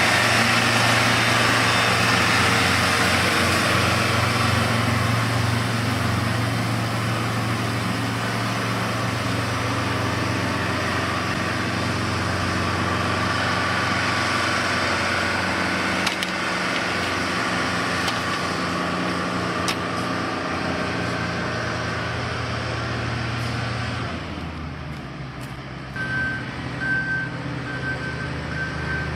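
Engines of heavy road-construction machinery running steadily. Near the end, a reversing alarm begins beeping in short, evenly spaced beeps.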